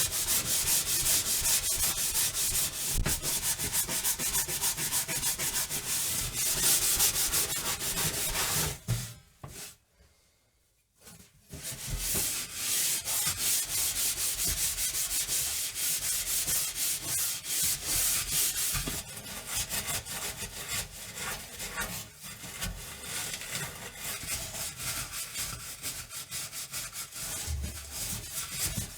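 Scrubbing an oven: quick, continuous back-and-forth rubbing strokes. They stop for a couple of seconds about nine seconds in, then resume.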